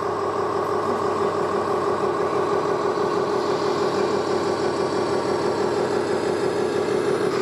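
A remote-controlled Volvo FH model truck's sound module playing a diesel engine at idle: a steady, even drone.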